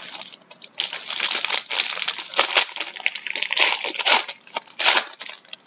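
Silver foil wrapper of a trading-card pack being torn open and crumpled by hand: a dense, crackling crinkle, loudest just before the end.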